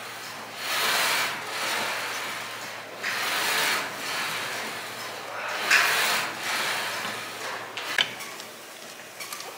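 Power leg press machine being worked through repetitions, giving a rasping, sliding rush about once a second. A sharp knock comes near the end.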